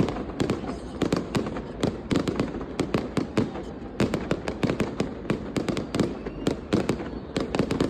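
Fireworks and firecrackers going off continuously: many overlapping sharp bangs and pops, several a second, with no let-up.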